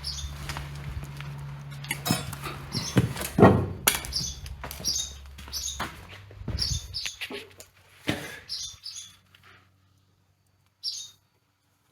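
A shop machine's electric motor hums steadily, then shuts off and dies away about six and a half seconds in. Wood and tools knock and clatter, loudest about three to four seconds in, and short high chirps recur throughout.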